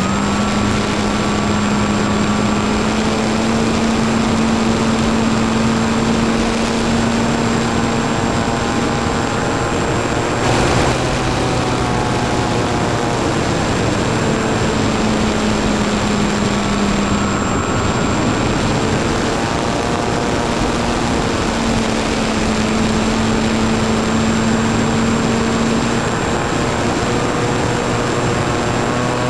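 Model aircraft's motor and propeller picked up by a camera mounted on board: a steady hum whose pitch shifts slightly now and then as the throttle changes, under constant wind rush, with a brief knock about ten seconds in.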